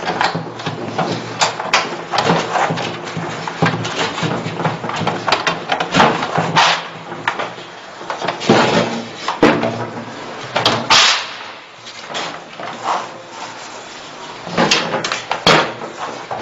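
Irregular knocks, clatters and short sliding scrapes of hard parts being handled, over a low steady hum.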